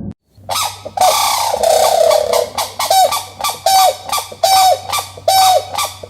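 An animal giving loud, harsh calls: one long call about a second in, then short calls repeated roughly every three quarters of a second, each a held tone that drops away at the end.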